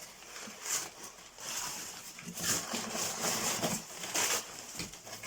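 Packing paper and cardboard rustling and crinkling as they are handled, in uneven bursts.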